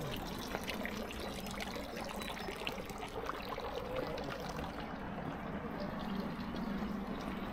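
Water trickling from a stone fountain into its basin, a steady splashing that grows fainter from about five seconds in.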